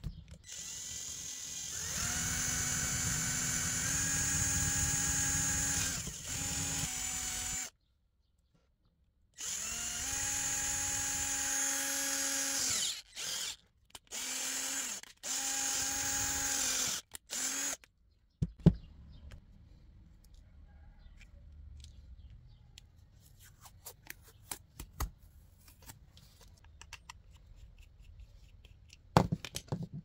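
Small electric drill running in several bursts of a steady whine over the first half, stopping and starting. Afterwards only scattered sharp clicks and taps of handling, the loudest just after the drill stops and another near the end.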